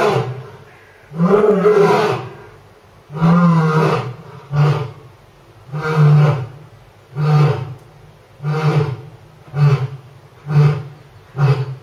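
Male lion roaring in a bout: a couple of long, full roars, then a series of shorter grunting roars that come quicker and quicker toward the end.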